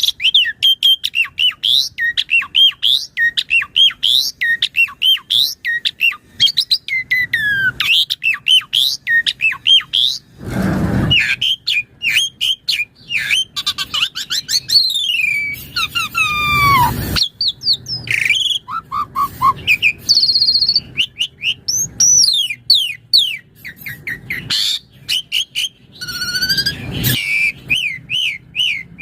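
Jalak suren (Asian pied starling) singing without pause: a rapid run of chirps and whistled notes sliding up and down, broken by a few harsh, noisy squawks about ten, sixteen and twenty-six seconds in.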